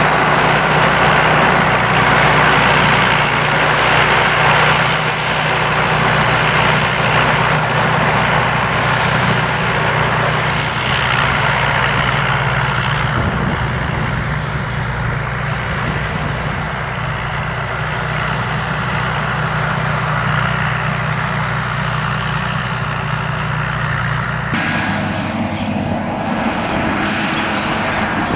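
Sakpattana SS-300 Black Bird combine harvester running steadily: a five-cylinder engine drone under a high, steady whine. About 25 seconds in the sound changes abruptly to a thinner mix with a lower whine.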